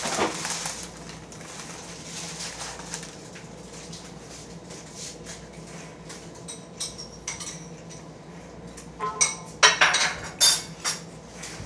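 Dishes and cutlery clinking: a few light clicks around the middle, then a louder cluster of sharp clinks near the end, over a faint steady low hum.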